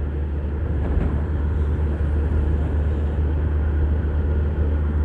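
Steady low rumble of a car on the move, engine and road noise.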